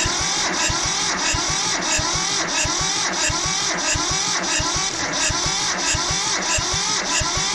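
Electric starter cranking a Mitsubishi MT372 tractor's diesel engine in a steady, rhythmic churn that never fires. The owner puts the no-start down to low compression from piston rings stuck after years of sitting.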